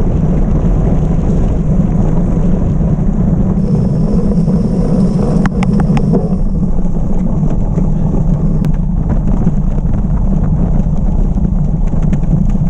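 Loud, steady wind buffeting on a bicycle-mounted action camera's microphone at race speed, mixed with the rumble of tyres rolling over a gravel road. A few sharp clicks come about five and a half seconds in.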